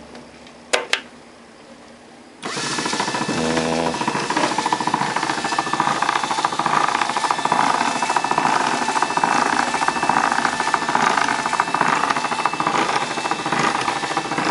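Two sharp clicks about a second in, then the electric dough sheeter's motor and reduction gearbox start up suddenly and run steadily, a loud machine whine with a fast mechanical rattle from the gears and rollers. It is running without any mechanical fault that the repairer can identify.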